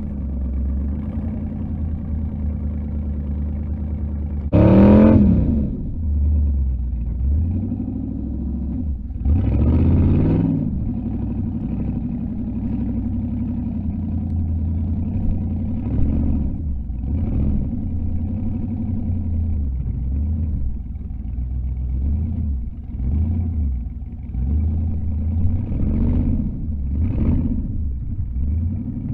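Off-road buggy engine running at low revs while crawling over rocks, with throttle blips: two strong revs about five and ten seconds in, then several shorter ones.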